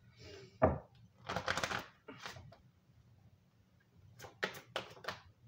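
Card decks being handled on a table: a sharp knock about a second in, a short rustle of cards, then a quick run of sharp taps near the end.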